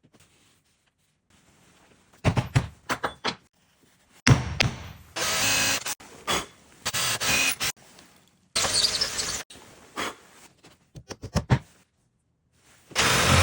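Workshop handling sounds from woodworking with a dowel jig: a string of sharp knocks and clacks, with several roughly one-second bursts of scraping or rubbing, starting after about two seconds of quiet.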